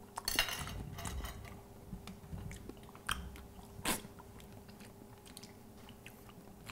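Someone biting into and chewing a piece of salted, grilled veal, with crunching mouth sounds in the first second and a half and two sharp clicks about three and four seconds in.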